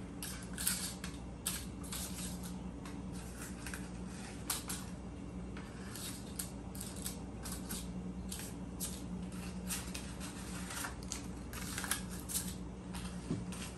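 Paper cupcake liners crinkling and rustling as they are pulled apart and pressed into a metal muffin tin, with irregular light crackles and taps.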